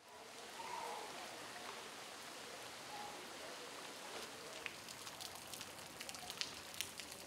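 Heavy rain falling on a flooded street, a steady hiss with sharp drop ticks that grow more frequent from about four seconds in.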